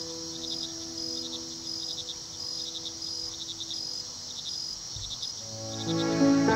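Background ambient music track: cricket-like chirps repeat evenly about twice a second over held low tones that fade away. A new melody comes in near the end, louder.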